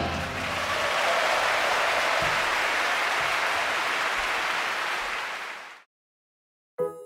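Concert-hall audience applauding as the song's last chord dies away; the applause fades and is cut off about six seconds in. A short electronic chime starts at the very end.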